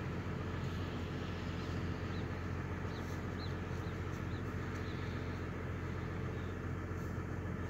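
2004 Chevrolet Trailblazer idling, heard at its tailpipe: a steady low exhaust drone that holds even throughout.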